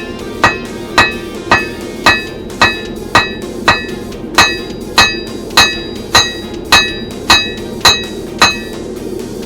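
Blacksmith's hammer striking hot steel on an anvil in a steady rhythm of about two blows a second, each blow with a bright metallic ring. The strikes stop near the end.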